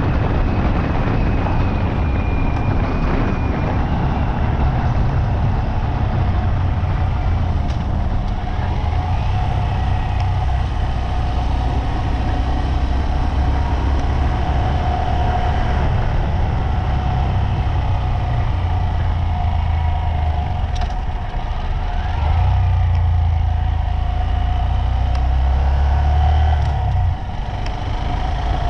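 Motor vehicle travelling on the road: a steady low engine and road rumble with a faint steady whine, swelling a little past the middle and dropping suddenly near the end.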